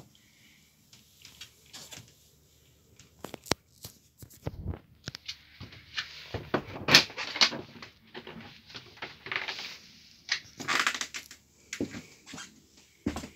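Handling and movement noises inside a small caravan: scattered sharp clicks and knocks, with bursts of rustling that are loudest in the middle.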